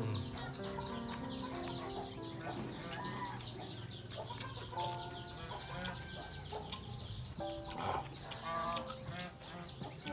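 Chickens clucking on and off, with scattered sharp clicks.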